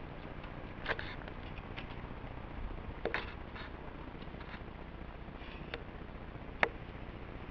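A few short, sharp clicks and clinks over a steady low hiss, the sharpest about six and a half seconds in.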